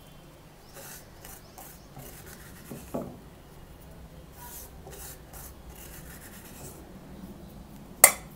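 Soft scraping and rubbing as ground dried red chilli powder is scooped by hand out of a stone mortar into a steel plate, with a thump about three seconds in and one sharp knock near the end.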